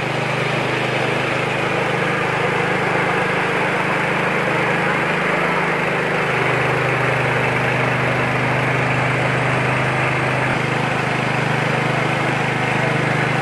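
Mini rice milling machine (820 Pro huller-polisher) running steadily under load: a constant low machine drone with a dense hiss of grain moving through the mill and pouring from the outlet chute.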